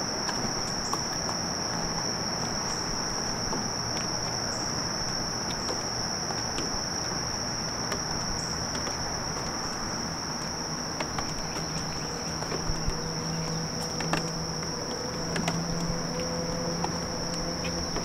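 A steady chorus of insects, one unbroken shrill high-pitched tone, over an even low noise.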